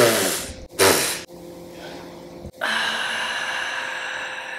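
A woman's exasperated sighs: two loud breathy exhales that fall in pitch, in the first second or so. About halfway through, a steady held tone starts and carries on.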